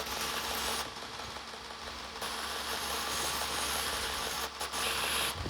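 Belt grinder running with a steady hiss over a low motor hum as the cut ends of metal handle pins are deburred against it. The grinding is louder for about a second and a half near the start.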